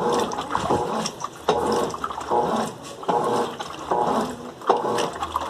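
Colormaq LCA11 top-loading washing machine agitating a heavy load of bed and bath linens with its turbo off, water and wet laundry sloshing in surges a little under a second apart.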